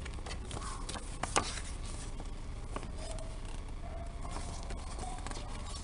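Paper CD booklet being unfolded and handled: rustling and crackling of the pages with scattered crisp clicks, the sharpest about a second and a half in.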